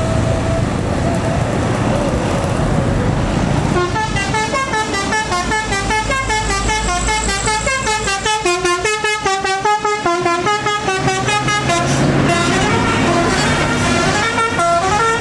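A tour bus's telolet basuri multi-tone horn playing a fast melody of short stepped notes. It starts about four seconds in, over a running engine, and the notes are held longer near the end.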